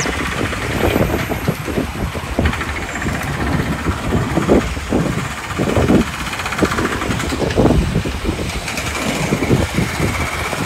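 Busy city road traffic: a steady, loud wash of passing vehicles and engine noise.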